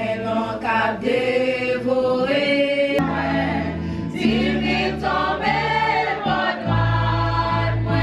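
A church youth group singing a gospel song together in several voices, sustained sung notes, with a low steady accompaniment joining about three seconds in.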